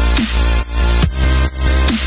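Background electronic dance music with heavy bass and a steady pumping beat, about two beats a second.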